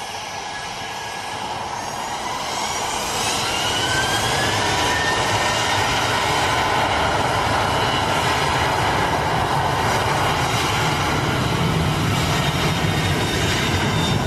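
Boeing 737-800's CFM56-7B jet engines spooling up to take-off power: their whine rises in pitch about two to four seconds in as the noise grows louder, then holds loud and steady with a deepening low rumble.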